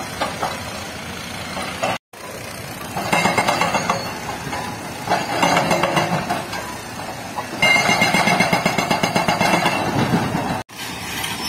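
Hydraulic rock breaker on a Sany SY210C-9 excavator hammering rock in three bursts of rapid blows, with the excavator's diesel engine running between the bursts.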